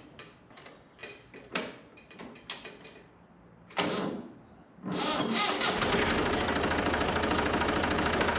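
Tractor engine being started: a few clicks and knocks from the seat and controls, a short burst of cranking about four seconds in, then the engine catches and runs at a steady idle.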